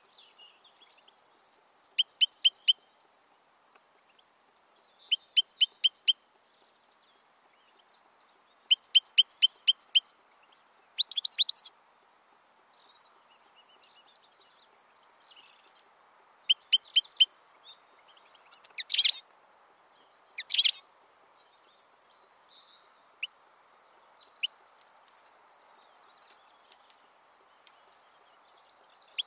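European goldfinch calling: short bursts of quick, high twittering notes every few seconds, then two sharper, louder single calls a little past two-thirds of the way through, and scattered lone notes near the end.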